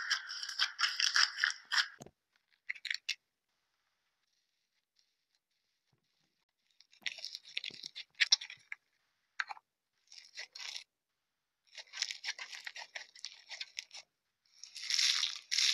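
Slime being pressed and squeezed by fingers, crackling and popping in bursts of quick clicks. There is a pause of several seconds about two seconds in, broken by one short burst, and the bursts grow louder near the end.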